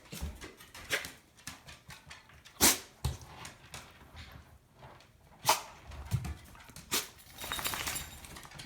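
Puppy sneezing several times, short sharp sneezes a second or two apart, two of them louder than the rest; a cold, the owner suspects.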